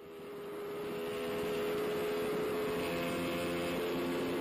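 Sport bike engine running at steady high revs in sixth gear, with wind rush on the onboard microphone at high speed. The sound fades up over the first second or so, then holds steady.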